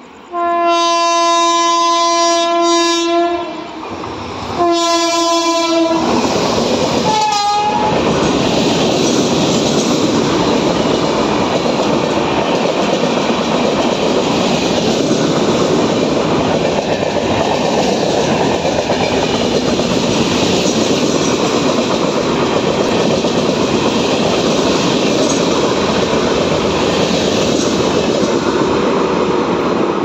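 WAP7 electric locomotive's twin-tone horn sounding two long blasts, then a short blast that drops in pitch as the engine passes. Then comes the steady rush and clickety-clack of an express train of LHB coaches running through the station at speed without stopping.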